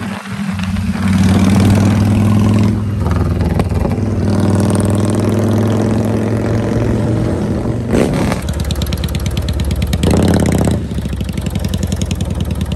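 An engine running at a steady pitch, surging louder twice near the two-thirds mark, then settling into an even, rapid pulsing.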